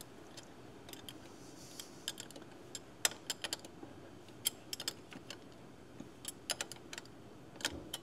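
Thin 14 mm wrench clicking and tapping against a fuel-line fitting on a Bosch K-Jetronic fuel distributor as the fitting is worked loose: irregular light metallic clicks, some in quick clusters.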